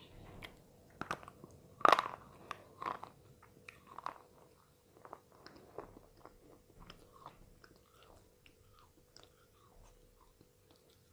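A person biting into and chewing a Tiger brand slate pencil. Sharp crunches come about one, two, three and four seconds in, the one at two seconds the loudest, followed by many smaller, softer chewing crackles.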